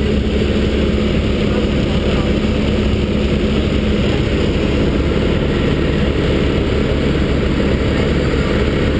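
Piper PA-38 Tomahawk's four-cylinder Lycoming engine and propeller running steadily in cruise, heard from inside the cabin as an even drone.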